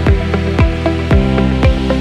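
Electronic background music with a steady kick-drum beat, about two beats a second, over sustained bass and synth notes.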